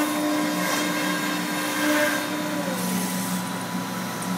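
Thermwood CS45 CNC router running as it cuts, a steady machine hum and whine over a hiss. About two-thirds of the way through, the hum shifts lower in pitch.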